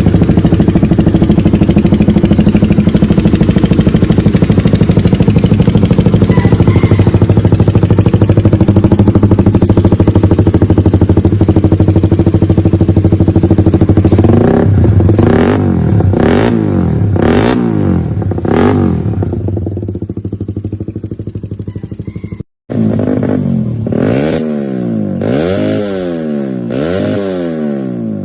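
Tuned engine of a Honda C70 step-through motorcycle running loud and steady with a fast, rough pulse. About halfway through it is revved in four sharp blips. After a brief cut it goes through a run of repeated rising and falling revs.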